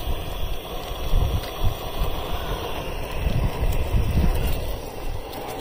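Wind buffeting the microphone in irregular low gusts over a steady rushing noise.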